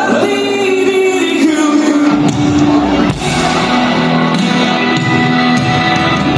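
Amplified band music with a singer holding long notes.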